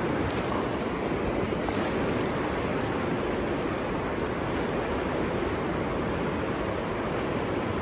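River water rushing and splashing in a steady, unbroken rush.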